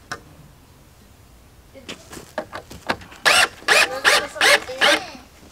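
Cordless drill driving a screw into a wooden board in a series of short bursts, the loudest five in quick succession between about three and five seconds in, after a single click near the start.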